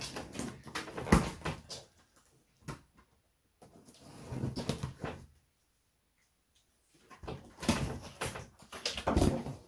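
Cardboard box being opened and its packaging handled: scattered knocks, scrapes and rustling, with a sharp knock about a second in and two brief pauses.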